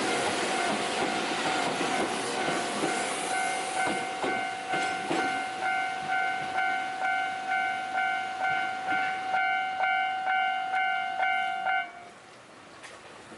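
Japanese level crossing warning bell ringing its electronic kan-kan about twice a second while a train rumbles across over the first few seconds; the bell stops abruptly near the end.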